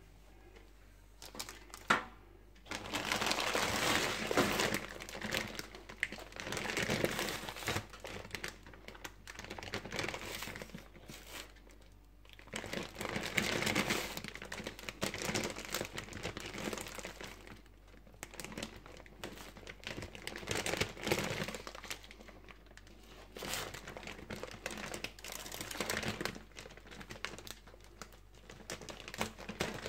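Plastic bag of frozen pyttipannu crinkling as it is handled and lifted, in irregular bursts with short pauses. One sharp click about two seconds in.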